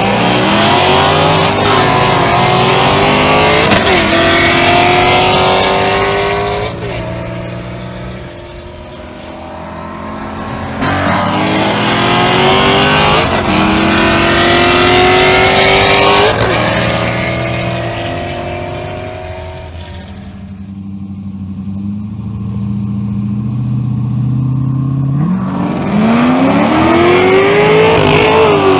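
V8 sports cars racing at full throttle, engine pitch climbing and dropping back at each upshift before climbing again. There are three hard pulls, the first two fading off after the shift, with a quieter stretch of steady engine running before the third pull starts near the end.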